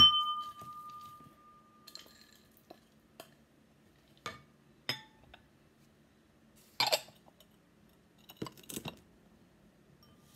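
A glass mixing bowl is struck and rings with a clear, fading tone, followed by scattered short clinks and knocks of a wooden spoon, ceramic bowls and a plate being handled on a tabletop.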